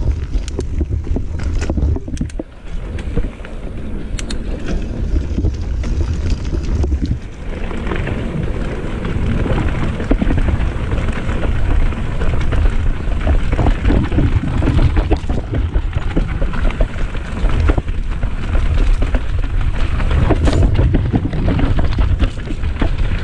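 Mountain bike ridden down a dirt singletrack: tyres rolling and crunching over the dirt, the bike rattling, and wind buffeting the microphone as a low rumble, with a few sharp clicks near the start. The noise grows louder and denser from about seven seconds in as the ride speeds up.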